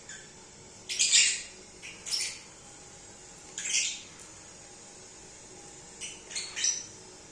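Lovebirds giving short, harsh squawking calls in scattered bursts, about four bursts with pauses between, the last a quick cluster of three calls.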